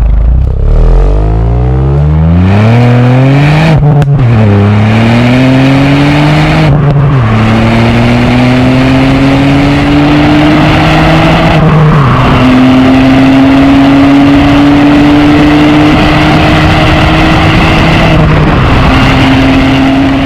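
Ford Fiesta ST's 1.5-litre turbocharged three-cylinder engine accelerating hard through the gears. Its pitch climbs, drops sharply at each of four upshifts (about 4, 7, 12 and 18 seconds in), then climbs again, each gear pulling longer than the last.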